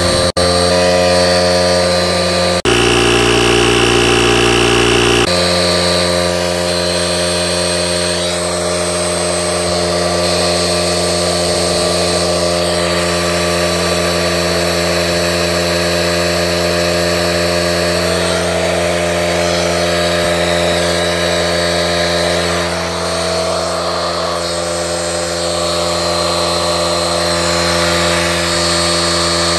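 Parkside PKA 20-Li A1 cordless 20 V compressor running with a steady buzz, pumping air into a car tyre from about 1.25 bar toward its preset 2.2 bar cut-off.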